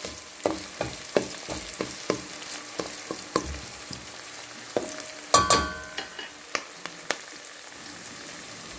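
Chopped garlic, onion and ginger sizzling in hot oil in a metal pot while a spatula stirs them, with irregular clicks and scrapes against the pot. The loudest is a ringing knock of the spatula on the pot a little after halfway through, and near the end only the sizzle is left.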